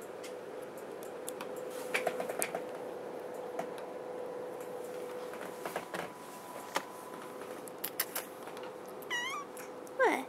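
Domestic cat meowing twice near the end, a short call and then one falling in pitch, after a few scattered clicks and knocks, over a faint steady hum.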